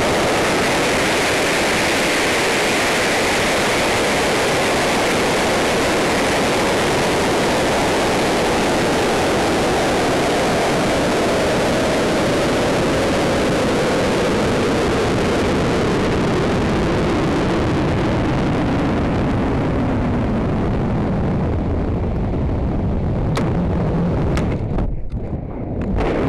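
AeroTech L900DM rocket motor firing at liftoff, heard from a camera riding on the rocket, giving way to a steady rush of air past the airframe during the climb, with a faint tone slowly falling in pitch as the rocket slows. Near the end the hiss thins and a sharp crack comes as the recovery parachute deploys at apogee.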